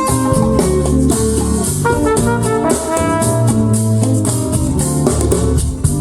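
Latin jazz with drum kit, guitar and brass, playing through a KEF Q11 loudspeaker.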